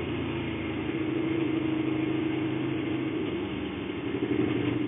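Motorcycle engine running steadily at cruising speed, with wind rushing past the microphone; the engine gets slightly louder near the end.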